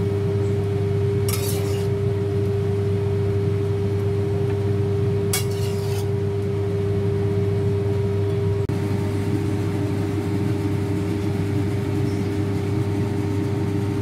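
Steady mechanical hum, with two short scrapes of a metal spatula against a wok as shrimp in sauce are slid onto a plate.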